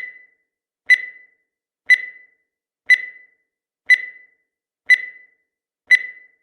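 Countdown timer sound effect: a short, high-pitched beep once every second, each beep starting sharply and fading quickly, marking off the final seconds.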